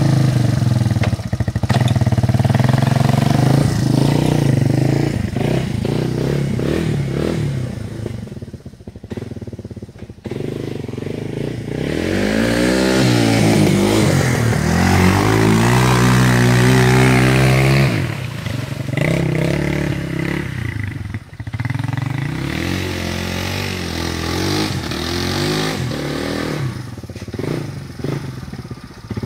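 Yamaha Timberwolf 250 ATV's single-cylinder four-stroke engine running and revving as it is ridden along a dirt trail. The pitch rises and falls with the throttle, drops back about a third of the way in, and is loudest around the middle as the quad passes close by.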